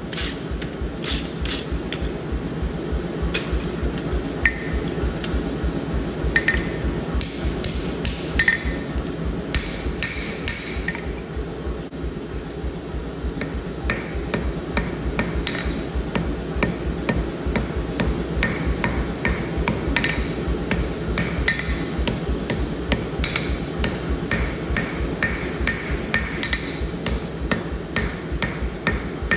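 A hand-held forging hammer strikes an orange-hot steel knife blade on a steel anvil, giving repeated blows with short metallic rings.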